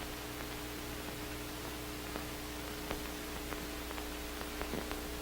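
Steady background hum and hiss of the recording, with a few faint ticks.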